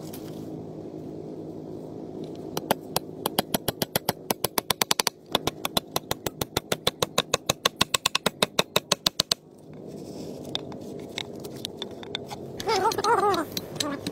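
Rapid hand hammering, about four to five sharp strikes a second for roughly seven seconds, as nails are driven through plastic drum sheet into a wooden plank. A steady low drone runs underneath and stops about the same time as the hammering.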